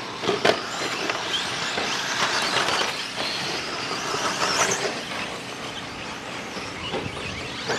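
Off-road RC cars racing on a dirt track: motor whines rising and falling over a steady haze of tyre and dirt noise, with a couple of sharp knocks about half a second in as a car lands off a jump.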